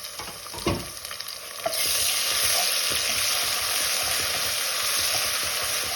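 Ginger, garlic and green chilli paste frying with onions in hot oil in a pan, stirred with a few scrapes and a knock at first. Then a loud, steady sizzle starts a little under two seconds in.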